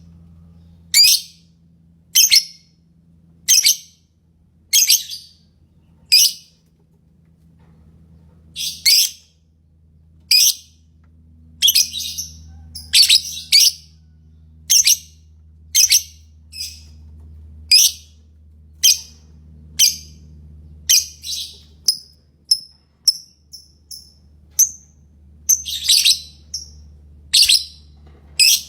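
Lovebird calling with short, shrill chirps about every second and a bit. The chirps come faster and smaller in the last several seconds. A faint low steady hum runs underneath.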